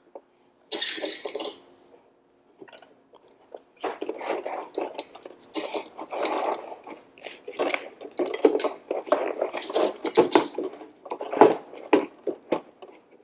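Irregular metal clinks and knocks as a garage door opener's steel rail is worked onto its power head to line up the mounting pins, with a brief hiss about a second in.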